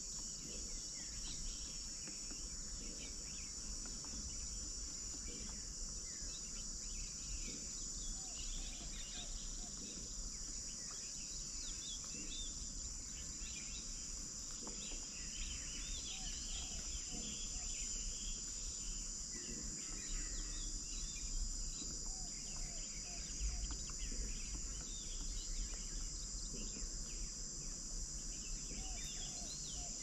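Steady high-pitched insect drone with scattered short bird chirps and calls over it. The chirps grow busier about halfway through.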